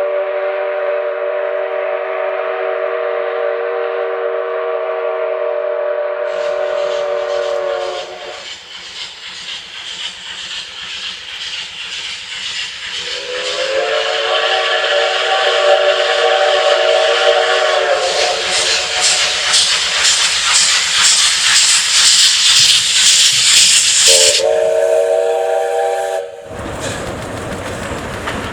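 Steam locomotive whistle sounding a chord of several tones in long blasts, four times. Between the blasts comes loud hissing steam with the rapid chuff of the locomotive's exhaust, strongest a little past the middle.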